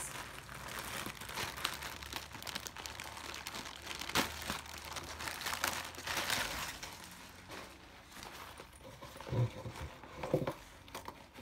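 Clear plastic packaging bag crinkling and rustling as a fabric lunch bag is pulled out of it, with a sharp crackle about four seconds in. The rustling dies down after about seven seconds, and a few soft knocks follow near the end.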